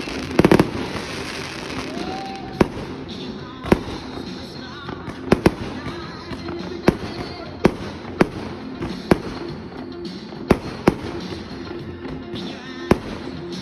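Firework battery (salute cake) going off: sharp bangs at irregular intervals, roughly one a second, over a steady bed of background music.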